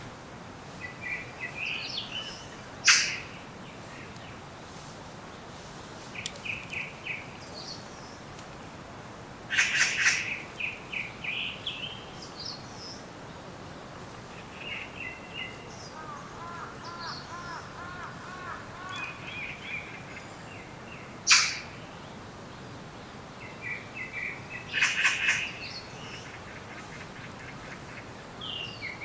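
Several wild birds calling and singing: short chirping phrases come again and again, with a quick rippling run of lower notes at one point. Two sharp, loud single calls stand out, about three seconds in and again past the middle, over a steady background hiss.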